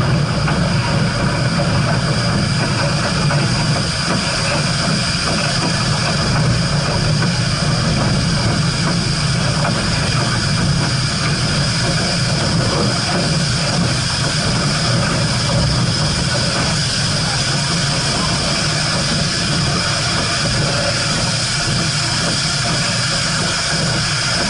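Steam train running, a steady low rumble with a constant high hiss and no distinct beat.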